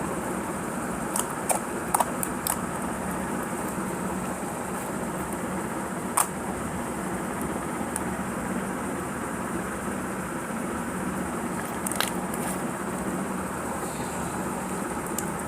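A steady hum and hiss of background noise, with a few short sharp clicks: several in the first seconds, then single ones about six and twelve seconds in.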